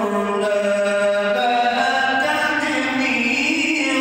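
A man reciting the Quran in a slow, melodic chant, drawing out long held notes that rise and fall in pitch.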